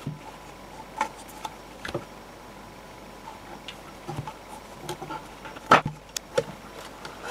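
Scattered clicks and knocks of plastic speaker parts and a circuit board being handled and fitted together during reassembly of a Sonos Play 1, with one sharper knock a couple of seconds before the end.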